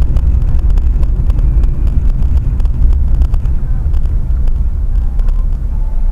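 Loud low vehicle rumble, with frequent short knocks and rattles throughout.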